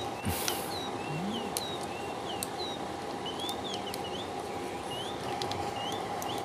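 Small birds chirping over and over in short, quick notes that slide up or down in pitch. Under them is a faint steady tone, and a few light metallic clicks come from a screwdriver fastening the gearbox onto the stand-fan motor.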